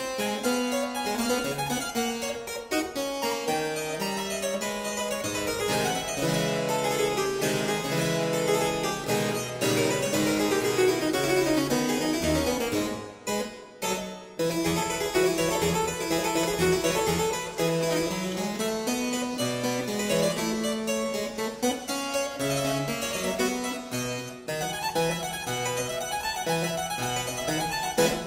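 Background instrumental music: a keyboard piece with quickly moving notes, which drops out briefly twice about halfway through.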